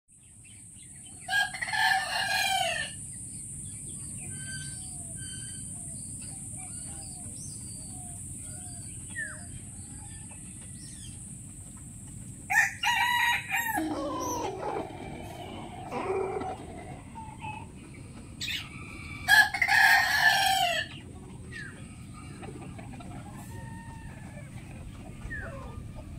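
Rooster crowing three times, each crow about a second and a half long, spaced roughly ten and seven seconds apart. Fainter clucking and short calls fall between the crows, over a steady high hiss.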